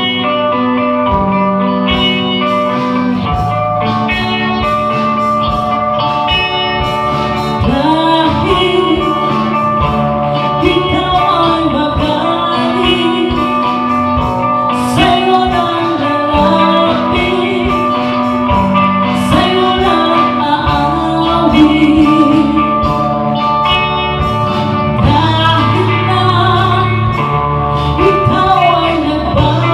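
A band playing a cover song: guitar and bass over a steady beat, with a singer coming in about eight seconds in.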